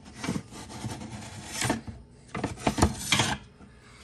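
Metal heat sink of an FPGA miner's hashboard scraping and sliding against the metal chassis as the board is pulled out of a tight-fitting slot, in several short scrapes.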